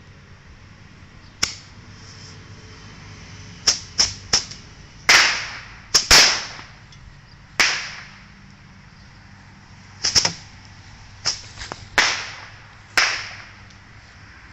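Small fireworks rockets going off one after another: about fourteen sudden whooshing launches and cracks, several in quick clusters, each hiss fading within a second.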